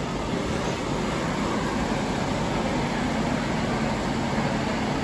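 Steady room noise inside a shop: a constant hum and hiss of ventilation and equipment, with no distinct events.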